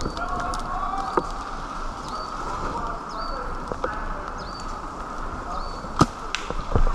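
A bird calling with short, high chirps repeated about every second, with a few sharp cracks near the end, the loudest about six seconds in.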